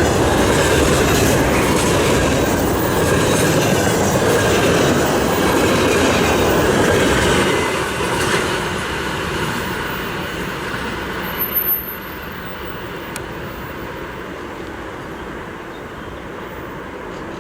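Container freight wagons rolling past at speed, wheels clattering over the rail joints. The loud rolling noise drops away about halfway through as the end of the train goes by, leaving a fading rumble.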